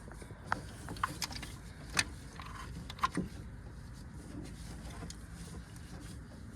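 A handful of sharp metal clicks and clinks from hand tools working on an engine, the loudest about two seconds in and again at three, over a low steady hum.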